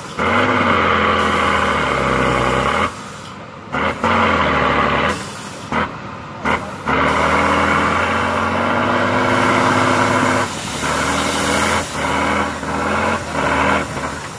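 Diesel engine of a Tatra 6x6 trial truck revving hard under load as it climbs a steep mud slope, its pitch rising and falling with several short lifts off the throttle, and a hiss building over it about two-thirds of the way through.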